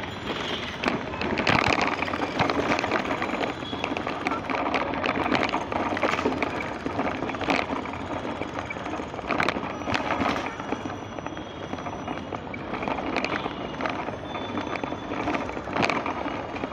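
Busy city street ambience: steady traffic noise with motorbikes and rickshaws, background voices of passers-by, and several sharp knocks scattered through it.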